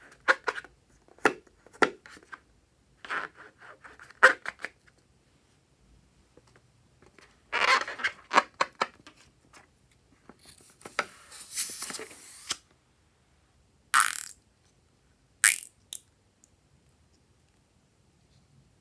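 Slime being squeezed and pulled: a string of short wet squishes and sticky pops. A longer hissing rush follows from about 11 to 12.5 seconds.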